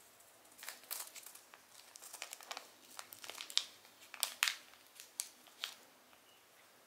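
Small clear plastic zip-lock bag crinkling as it is unfolded and pulled open by hand: a run of sharp crackles starting about half a second in and stopping about a second before the end.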